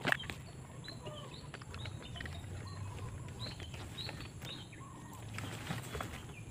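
Birds chirping faintly in the background: short high chirps repeating irregularly, over a low steady hum. There is a brief rustle of handling at the very start.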